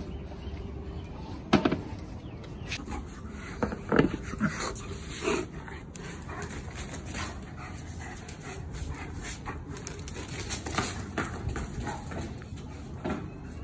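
German Shepherd dog panting close by, quick rhythmic breaths, with a few short louder sounds in the first few seconds.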